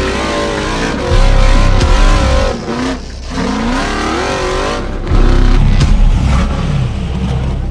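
FIN Komodo off-road buggy engine revving as it drives, its pitch rising and falling with the throttle, with a brief dip about three seconds in.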